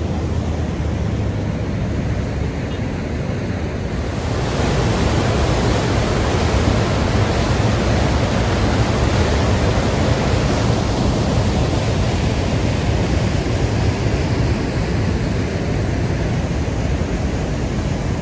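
Fast whitewater rapids of the Kicking Horse River rushing over and around rocks, a steady loud rush with the current running strong. It grows louder about four seconds in.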